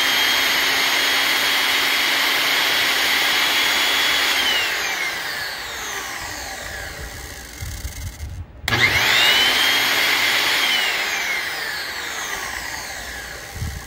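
Vintage Skilsaw Model 77 worm-drive circular saw's universal motor, run with no blade on freshly fitted brushes, whining at full speed. About 4 s in the trigger is released and it winds down with falling pitch. It is started again near 9 s, runs briefly, then winds down again near the end, running without the clicking noise it made before the repair.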